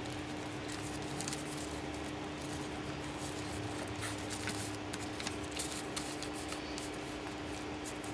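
Paper envelopes rustling and scraping as they are handled and squared up by hand, with scattered light ticks, over a steady low hum.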